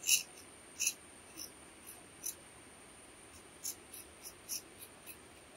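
Small bark-scraping knife being sharpened with a hand-held stone: about a dozen short scraping strokes at an uneven pace, the first the loudest, over the steady high drone of insects.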